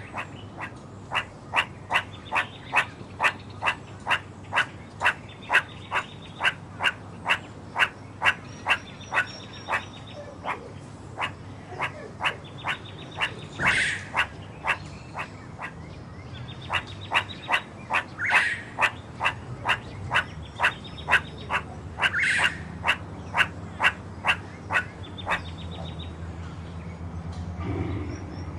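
Frogs calling: short, sharp clicking calls repeated evenly about twice a second, with a few louder upward-sweeping calls standing out now and then.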